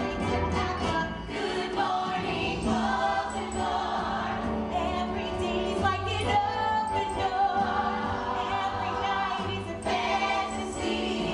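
Live musical-theatre song: a woman singing over the pit band, with choir-like backing voices.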